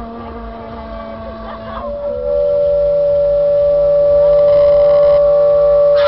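Keyboard-played train horns on a fire-shooting art car, sounding a sustained multi-note chord. About two seconds in, the notes shift and the chord swells much louder, then holds.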